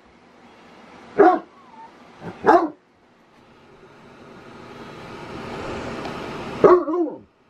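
Small Chihuahua-type dog barking at the moving red dot of an automatic laser pet toy: a single sharp bark about a second in, another a second later, then a quick double bark near the end. A rushing noise swells between the barks.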